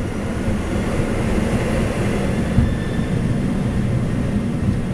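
Aircraft engines at takeoff thrust with the steady rumble of the landing gear rolling down the runway during the takeoff roll, heard inside the cockpit. A single bump about two and a half seconds in.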